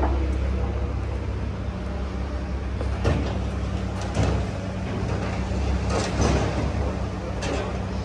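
Heavy machinery running with a steady low drone, with several metallic clunks and knocks: one about three seconds in, another a second later, a pair around six seconds and one near the end.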